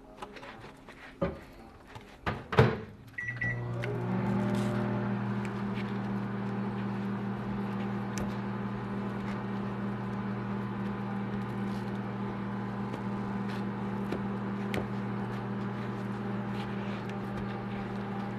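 A couple of knocks, then a short beep about three seconds in, after which a kitchen appliance switches on and runs with a steady hum.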